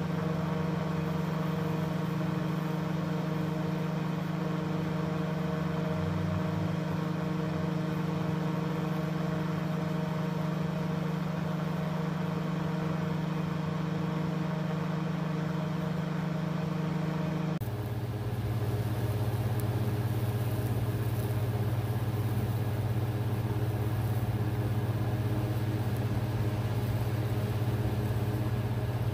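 Steady high-voltage electrical buzz of a 10,000-volt fractal-burning (Lichtenberg) rig as current burns a glowing path through walnut. Partway through, the buzz changes abruptly to a lower pitch with more hiss, then holds steady again.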